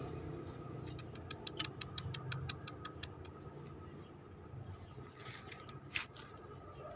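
Leopard cat kitten eating at a small dish of milk-wetted meat: a quick, even run of small wet clicks, about four or five a second, lasting a couple of seconds. Under it runs a faint low engine hum, and a few soft scuffs and a sharp click come near the end.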